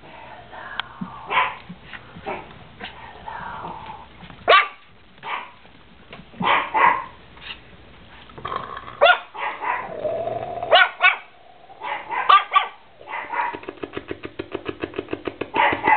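Chihuahua puppies barking in play: short, sharp, high-pitched yaps every second or so. From about three-quarters of the way through, a rapid pulsing growl runs under the yaps.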